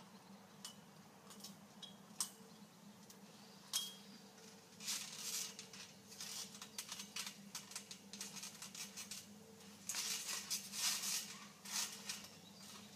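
Trampoline springs and frame creaking and clinking in short bursts as someone climbs onto it and starts bouncing. A few separate clicks come first, and the bursts get busier toward the end.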